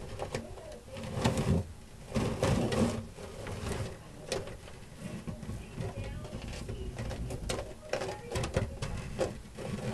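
Savanna monitor eating a small rat, its jaws working on the prey with irregular clicks. Louder, duller bursts come about one and two and a half seconds in.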